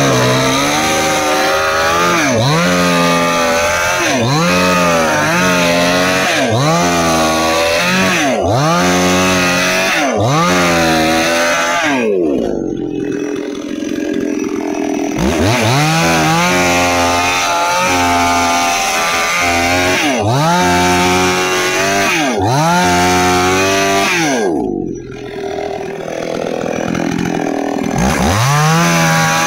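Nagano MN 6000 two-stroke chainsaw cutting through a log. The engine pitch sags under load and climbs back about every second and a half. Twice it falls back to a steady lower note for a couple of seconds before it bites in again.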